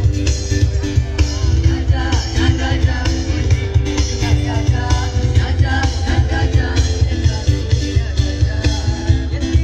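Live band playing through loudspeakers: women singing into microphones over acoustic guitar and keyboard, with a steady beat and heavy bass.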